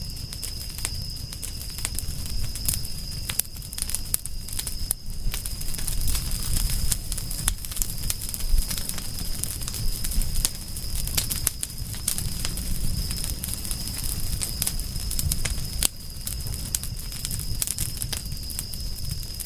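Wood fire crackling, with irregular sharp snaps and pops over a low rumble. The loudest pop comes about eight and a half seconds in. A steady, thin high-pitched tone runs underneath.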